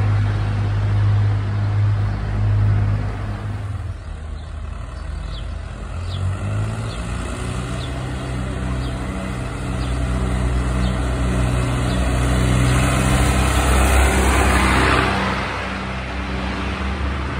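A car passes at the start, then an old tractor's engine runs steadily as it drives closer, loudest as it goes by about three-quarters of the way through, and fades after it has passed.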